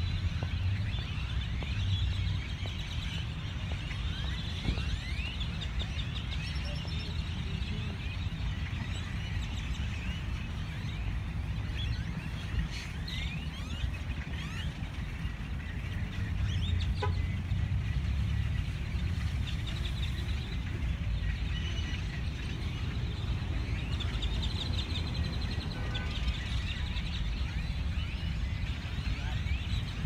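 A large flock of great-tailed grackles calling together: a dense, continuous din of many overlapping short sliding calls, over a steady low rumble.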